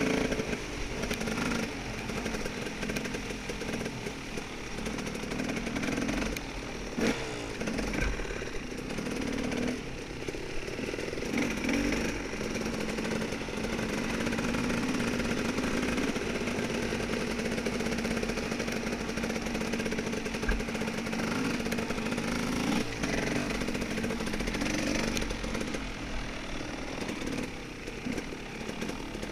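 Dirt bike engine running while being ridden along a woods trail, its pitch rising and falling with the throttle.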